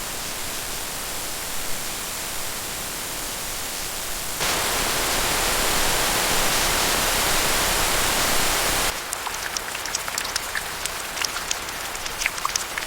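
Heavy rain falling, a steady hiss that steps up louder about four seconds in and drops back abruptly around nine seconds in. After that it is a lighter hiss with many separate drops ticking.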